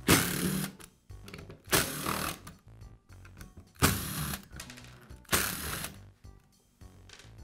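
Cordless drill/driver running in four short bursts of about half a second each, backing out the housing screws of a cordless screwdriver.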